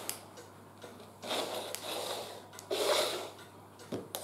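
Plastic toy-train track pieces being handled and fitted together, with a few light clicks and some soft rustling.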